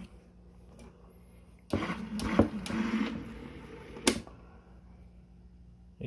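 Servo-driven linear actuator running, its carriage travelling for about two seconds as it resumes motion after an e-stop hold. A single sharp click follows, over a low steady hum.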